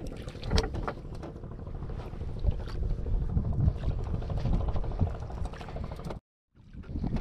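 Wind rumbling on the microphone and water sloshing around a small outrigger fishing boat, with scattered light knocks. The sound cuts out completely for a moment near the end.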